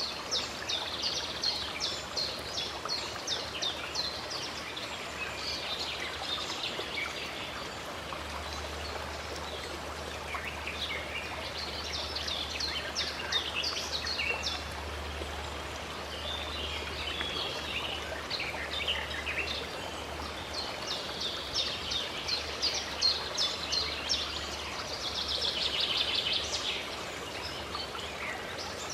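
Songbirds singing and calling over the steady rush of running water, with many quick repeated and trilled phrases. A low hum sits underneath through much of the middle.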